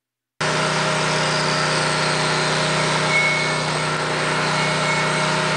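A machine running steadily, an even engine-like hum that cuts in abruptly about half a second in and holds unchanged.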